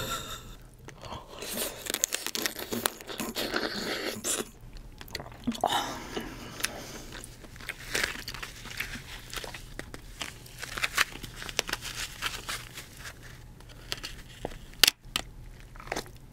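Shells of cooked king crab legs being cracked and pulled apart by hand, with irregular crunching and crackling and one sharp snap near the end.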